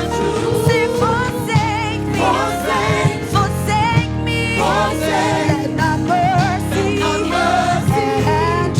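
Gospel worship song: several voices singing with vibrato over a full band with a steady drum beat.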